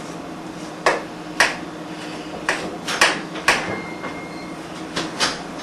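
Sharp clicks and taps from small objects being handled, about seven scattered unevenly, over a faint steady hum.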